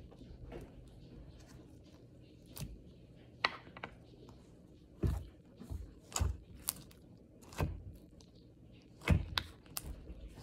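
Fingers poking and pressing soft slime in its tub, making irregular wet pops and clicks, about ten of them, some with a soft thud.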